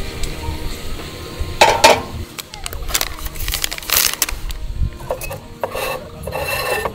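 A paper drip-coffee sachet torn open and its paper filter unfolded and hooked onto a metal mug: several short rustling and crinkling bursts about a second apart.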